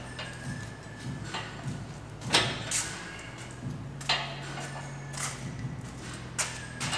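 Scattered light metallic clicks and knocks as bolts and engine-mount brackets are fitted by hand into a steel ATV frame, left loose for now; the sharpest clinks come about two and a half, four and five seconds in.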